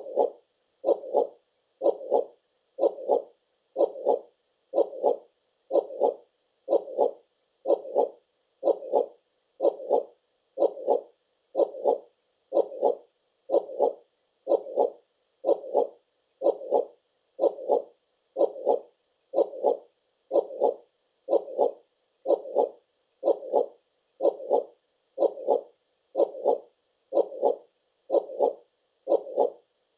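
Heartbeat sound: a steady lub-dub double beat, about one a second.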